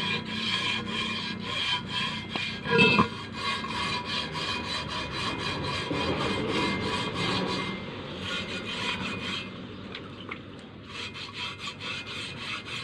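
Sandpaper for metal rubbed back and forth by hand over the wet, rust-crusted inner surface of a steel wheel rim, in quick scraping strokes that sand off the deposits so the rim is smooth enough to seal a tubeless tyre. One brief louder knock comes about three seconds in, and the rubbing goes quieter in the second half.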